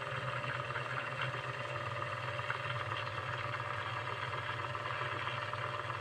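Small brushed DC motor running steadily, driving a rubber belt that spins the rotor of a homemade generator built from rewound table-fan coils: an even whir over a constant low hum.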